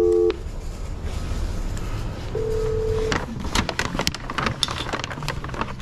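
Telephone tones from a phone: a steady two-note dial-type tone that cuts off just after the start, and a second, shorter tone about two and a half seconds in. A run of short clicks and rustles follows near the end.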